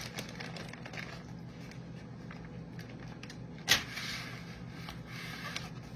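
Kitchen handling as cooked mostaccioli pasta is added to a baking pan: small clicks and scrapes of utensil and container, with one sharp knock a little past halfway, over a steady low hum.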